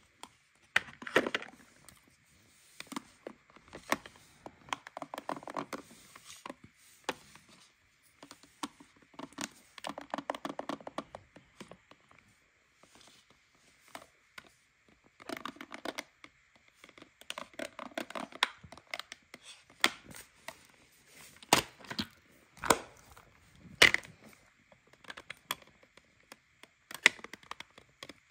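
Pieces of a plastic toy dentist playset handled and knocked together, with sharp clicks and short spells of clatter, and a toy toothbrush rubbed over plastic model teeth.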